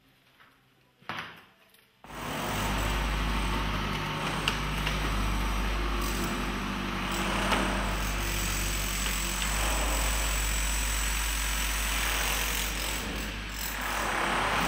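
Near silence with one short knock about a second in. About two seconds in, a steady low rumble of building-site machinery, with hiss over it, starts suddenly and carries on.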